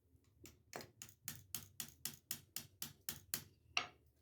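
A hammer lightly and evenly tapping a metal press-button fastener, about thirteen quick taps at about four a second, setting the pronged ring into the socket or stud.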